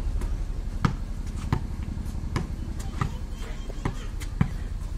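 Basketball dribbled on a hard-packed dirt court: sharp bounces about every half second to second, some six or seven in all.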